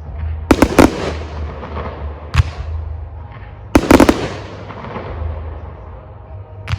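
Aerial firework shells bursting in a large display: sharp bangs in clusters, each with a long rumbling echo. Three come in quick succession near the start, one stands alone, a loud pair falls near the middle, and another bang comes near the end.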